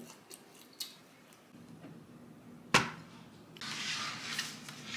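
One sharp knock, then a scraping hiss from about halfway through as a wooden serving tray is slid across the stone kitchen countertop.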